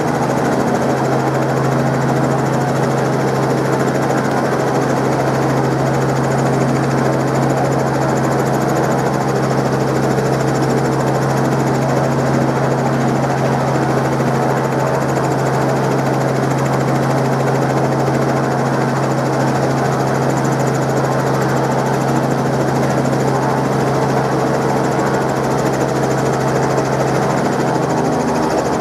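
Helicopter roaring loudly and steadily, with a constant low engine drone and no change in pitch or level.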